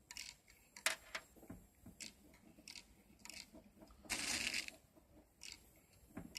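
BBs being dropped one at a time into a Colt Defender BB pistol's magazine, a string of small, irregular metallic clicks, with a short rattle of BBs about four seconds in.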